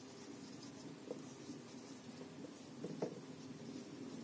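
Faint scratching of a marker pen writing on a whiteboard, with a few short soft squeaks and taps as the strokes are made.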